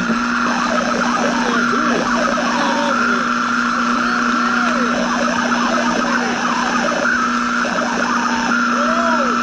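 Old AM radio static: steady hiss and hum under a high whistle that drops out and returns, with many short whistling squeals that swoop up and down in pitch.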